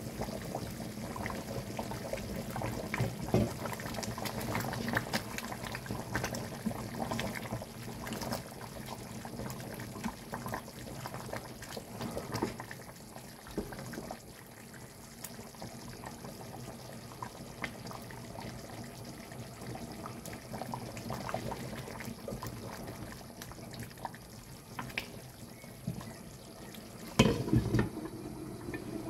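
Thick lamb curry simmering in a pot while a wooden spatula stirs through it, with wet sloshing and small knocks against the pot. Near the end, a glass pot lid is set back on with one sharp clunk.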